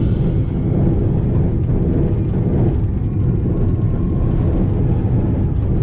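Steady low rumble and wind noise of a moving diesel locomotive, picked up by a camera mounted outside the cab window.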